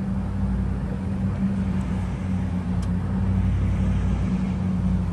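Hummer H2's V8 engine idling, a steady low drone.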